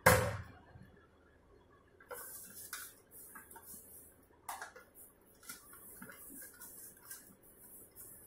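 A single sharp thump with a brief metallic ring as a wide steel pan is set down on the counter, then hands rubbing together over the pan to scrape off sticky dough: a dry rustle with scattered light ticks.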